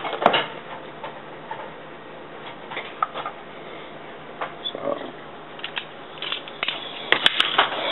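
A teaspoon and glass canning jars being handled on a counter: scattered light taps and clicks, a sharp knock just after the start and a quick run of clicks near the end.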